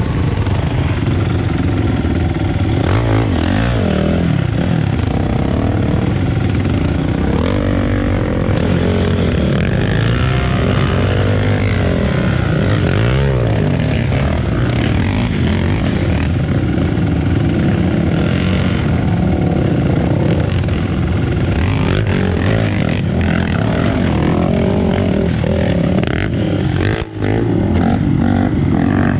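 Off-road motorcycle engine running loudly under a rider's throttle, its pitch rising and falling repeatedly as the bike is ridden along a trail, with a momentary drop near the end.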